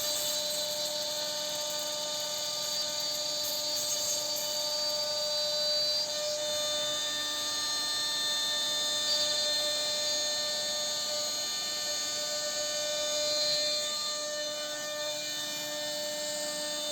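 CNC router carving wood, its spindle running with a steady high-pitched whine over a hiss of cutting, the pitch holding constant throughout.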